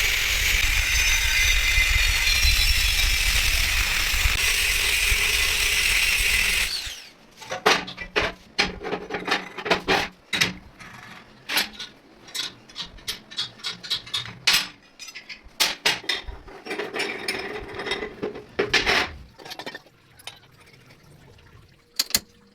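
A power tool runs loudly and steadily for about seven seconds, then cuts off. It is followed by a series of irregular clicks and knocks of tools being handled.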